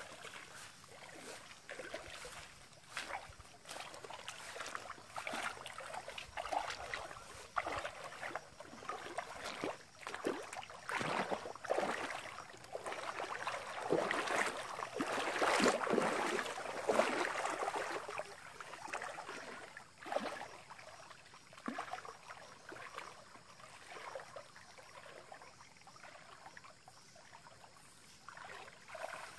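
People wading through a shallow stream: a run of sloshing, splashing footsteps in the water, loudest about halfway through.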